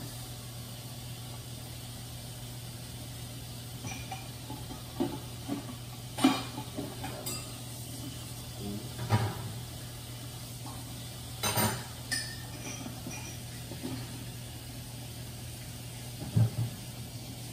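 Kitchen clatter at the sink: dishes and utensils knocked and clinked now and then, a few sharper knocks standing out, over a steady low hum.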